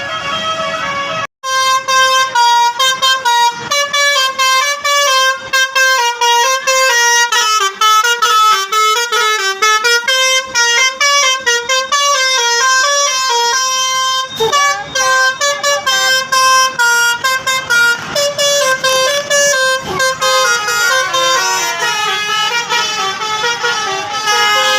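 Telolet bus horn, the multi-tone musical horn of an Indonesian coach, playing a loud, fast, unbroken run of short notes that jump up and down in pitch like a tune. It cuts out for a moment about a second in, then plays on.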